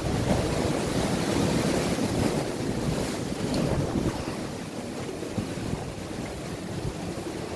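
Rough sea surf breaking on rocks, a steady wash of noise with wind buffeting the microphone, easing slightly toward the end.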